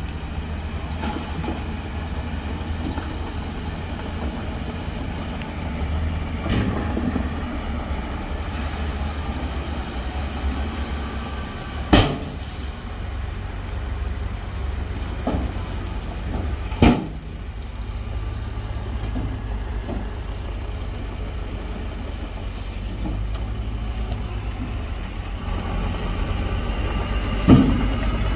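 Heavy diesel engines of a bulldozer and a stuck dump truck running steadily, with three sharp metallic clanks, the loudest moments, spaced through the stretch.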